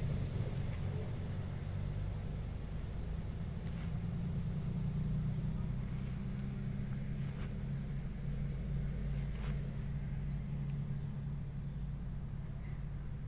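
Vehicle engine idling steadily, a low hum, with an insect chirping high and faint in an even rhythm about three times a second.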